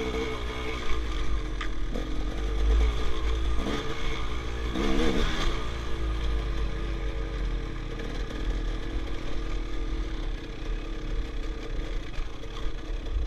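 Enduro dirt bike's engine heard from the rider's helmet, its revs rising and falling repeatedly with throttle, hardest about five seconds in, over a heavy low rumble.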